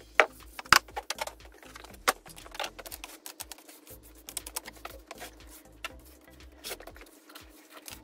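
Knocks, clicks and scrapes of a metal sand-casting flask being gripped and shifted on a wooden board, with a few sharp, loud knocks in the first two seconds. Soft background music underneath.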